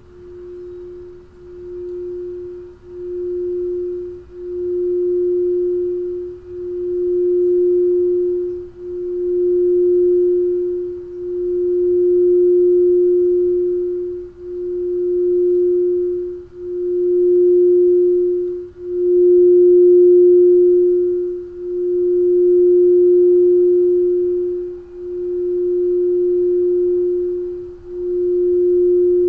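Crystal singing bowl being rimmed, holding one pure, steady note that swells and ebbs in waves about every two seconds, building in loudness over the first several seconds.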